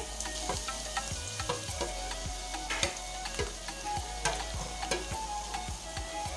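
Finely chopped onions sizzling in hot oil in a kadhai, a steady hiss with frequent small crackles and pops.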